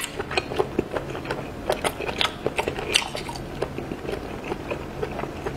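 Close-miked chewing of a mouthful of abalone: a quick, irregular run of small wet clicks and smacks.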